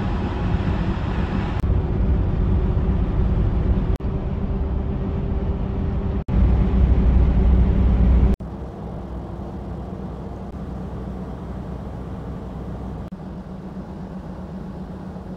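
Scania R450 truck running on the road: a steady engine drone with road noise, in several spliced clips. It is loudest about six to eight seconds in and quieter after that.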